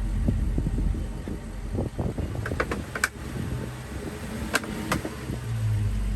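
A car engine idling low and steady, with a run of knocks and a few sharp clicks in the middle.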